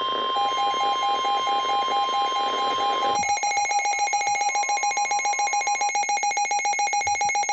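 Layered emergency alert tones: a steady high tone held under a rapid beeping of about six beeps a second. About three seconds in, a faster, denser beeping with more tones joins, and the steady tone fades out near six seconds.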